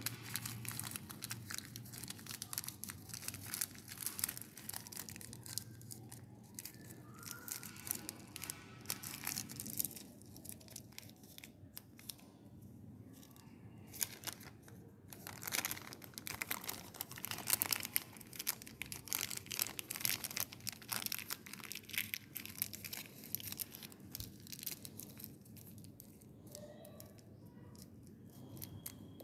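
Butter paper crinkling and rustling in irregular crackles as it is folded by hand around small suppositories.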